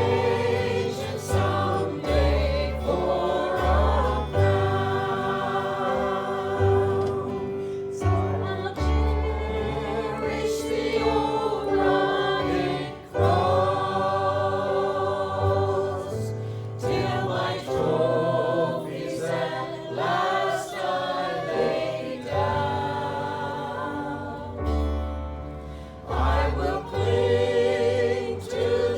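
A group of voices singing a gospel hymn with instrumental accompaniment, sung phrases with held notes over deep bass notes.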